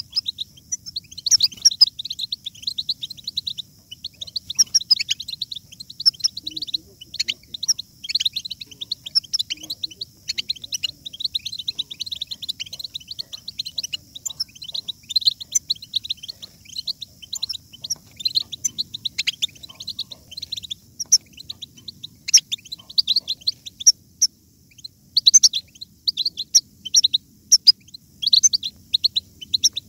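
European goldfinches twittering and singing: a dense, continuous stream of quick, high chirps and trills, with a brief lull near the end.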